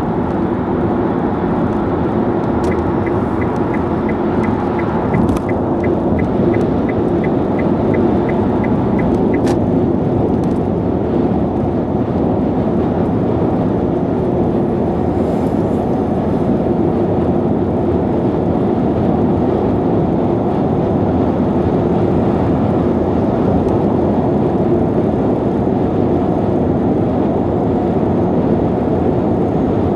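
Steady tyre and wind noise inside a Nissan Leaf electric car cruising at expressway speed, with no engine sound. From about three to nine seconds in, a run of short high ticks, about three a second, from the turn-signal indicator during a lane change.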